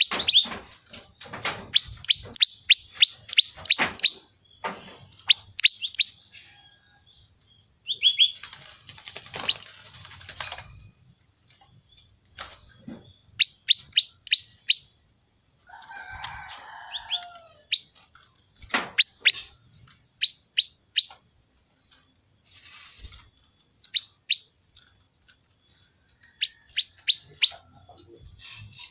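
Prenjak lumut songbird calling its sharp, high "ceng-ceng" notes, given in quick runs of several notes with short pauses between the runs. A brief, lower call comes in about halfway through.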